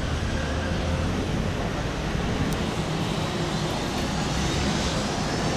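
Distant CFM56 jet engines of a Boeing 737-800 running as the airliner moves along the runway: a steady low rumble with a hiss over it.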